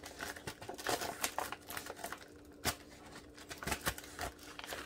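Small hard wax melt shapes clicking and tapping together as they are picked through by hand: irregular light clicks, with a few sharper knocks.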